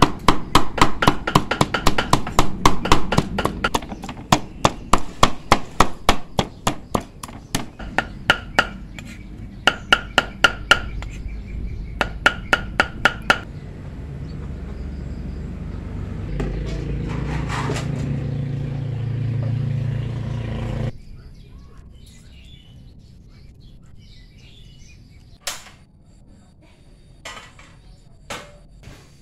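Wooden pestle pounding a paste in a deep wooden mortar: a rapid, regular run of strokes, several a second, that stops about halfway through. A steady low hum follows for a few seconds and cuts off suddenly, then a few light clicks.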